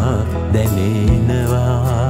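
Music from a Sinhala ballad: a wavering melody line over a steady bass, with a low drum beat about a second in.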